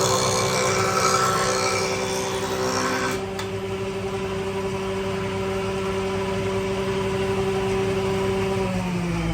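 Electric power tool motor running with a steady whine. A noisier working sound over it stops about three seconds in, and near the end the motor is switched off and spins down with falling pitch.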